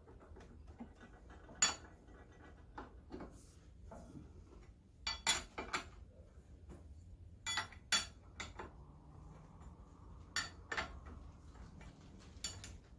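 Steel wrench clinking on the crankshaft bearing cap nuts and cast-iron crankcase of a 3 hp International Harvester Type M engine as the nuts are worked by hand: scattered sharp metallic clinks, several in quick pairs and clusters.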